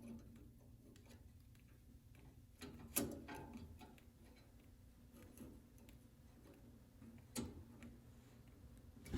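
A few light metallic clicks and taps over near silence, the loudest about three seconds in: a spanner wrench working the brass retaining nut on a drinking fountain's valve cartridge, snugging it up gently.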